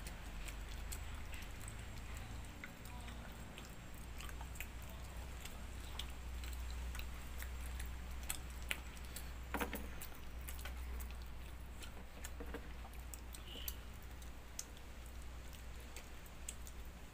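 Chewing and wet mouth sounds of a person eating rice and side dishes by hand, with scattered small clicks over a low steady hum.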